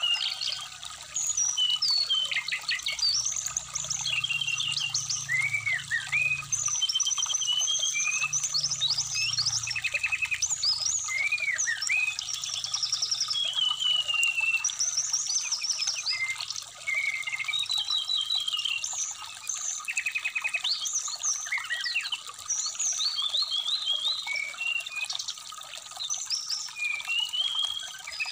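Brown-chested jungle flycatcher (SRDC) singing a long, varied stream of quick chirps, rattling trills and slurred whistled phrases, over the steady trickle of a shallow stream.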